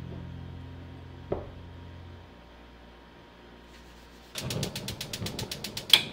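Gas stove burner's spark igniter clicking rapidly, about ten clicks a second for under two seconds, ending in a louder click as the burner lights.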